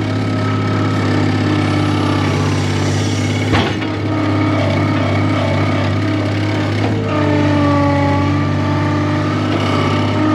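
Skid steer engine running steadily, with whining tones above the drone that shift in pitch twice. A sharp knock comes about three and a half seconds in.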